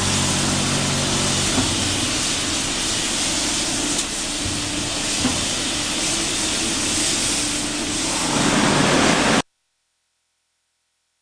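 Plastic basket washing machine running: a steady hiss of water spraying, with a motor hum under it for the first second or so. The sound cuts off suddenly about nine seconds in.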